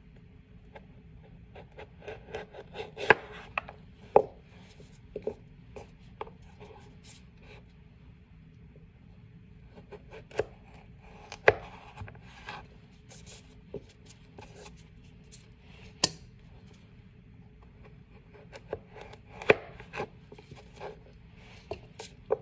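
Chef's knife cutting through a raw carrot onto a plastic cutting board: sharp knocks of the blade striking the board, coming in irregular clusters with quieter pauses between as the carrot is turned and repositioned.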